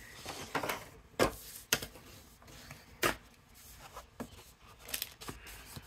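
Sheet of white cardstock being handled and pressed on a gridded craft mat: scattered light paper rustles and taps, the sharpest about three seconds in.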